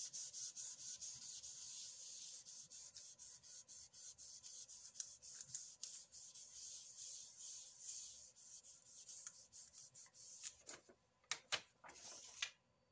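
Hands rubbing fast and evenly back and forth over a sheet of paper laid on polymer clay, burnishing the clay through the paper, at about four strokes a second. Near the end a few louder, separate paper rustles as the sheet is lifted away.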